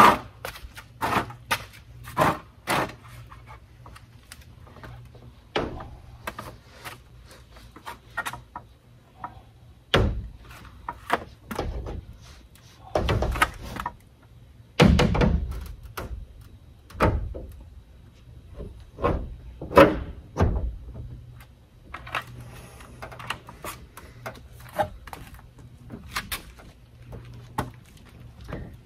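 Knocks, clicks and several dull thumps as a van window, held by suction-cup lifters, is handled and knocked into the sheet-metal frame of a sliding-door opening; the heaviest thumps come in the middle.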